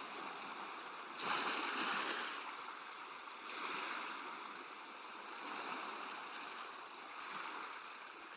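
Industrial washing machine with water and laundry sloshing in the turning drum, swelling and easing every couple of seconds, loudest about a second in.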